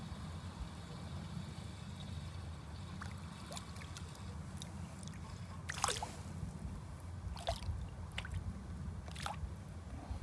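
A hooked fish splashing at the water's surface as it is reeled in: a few short splashes and sloshes, the loudest about six seconds in, over a steady low rumble.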